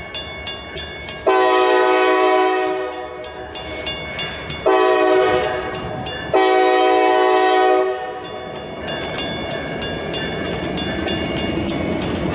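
Diesel locomotive horn sounding three blasts, each about one and a half to two seconds long, over a train rolling with a rhythmic clicking of wheels on rail joints. The horn is the loudest sound; after the third blast the train's rumble and clicking carry on.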